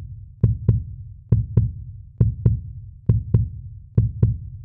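A heartbeat-style beat: low double thumps, two strikes about a quarter second apart, repeating a little more than once a second, five pairs in all.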